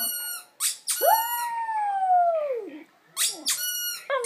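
Squeaky toy squeaked twice, then a poodle's long howl that rises, holds and slides down in pitch. Two more squeaks follow, and a second howl begins near the end.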